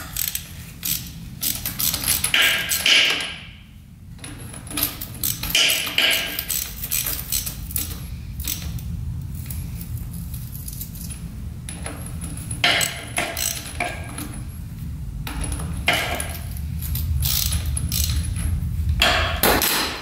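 Metal hand tools and small parts clinking and rattling in a string of sharp irregular clicks, with a few short scrapes, as the 1986 Honda CR125's engine is opened to drain and check its oil. A steady low rumble runs underneath.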